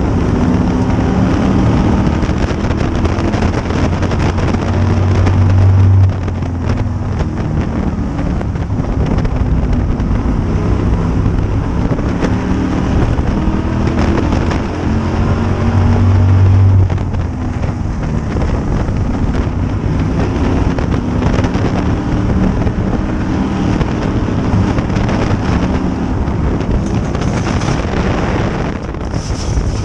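Modified race car's V8 engine at racing speed, heard from the car's roof, with wind buffeting the microphone. The engine builds to full throttle down the straights and is cut back sharply into the turns, twice in a row, about ten seconds apart.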